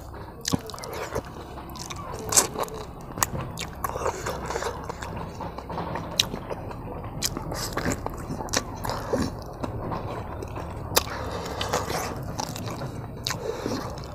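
Close-up eating sounds: a man biting and chewing pork meat and fat off the bone, with irregular sharp mouth smacks and clicks.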